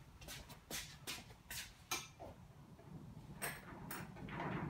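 A few faint, irregular knocks and clicks: footsteps and a person handling tools.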